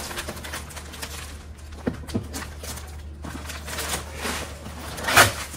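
Boxed gifts being handled: a few light knocks and some rustling, with one sharper, louder knock near the end, over a steady low hum.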